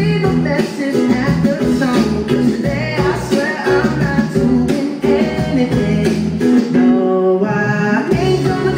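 Music with singing and guitar.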